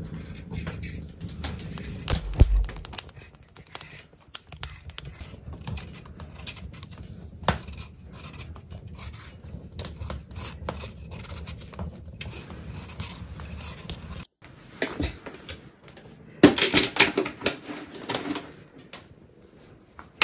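A knife peeling a raw potato by hand: many small scraping cuts and clicks as the blade strips the skin. About three-quarters of the way through comes a louder, brief clatter of handling.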